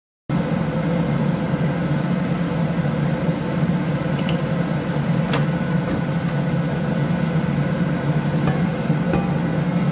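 Steady low hum of a kitchen appliance, with one faint sharp click about five seconds in.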